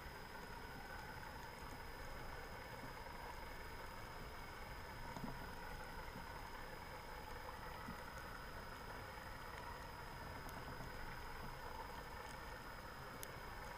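Steady underwater ambient noise picked up by a camera in a waterproof housing, with a faint constant high-pitched tone and a few faint clicks.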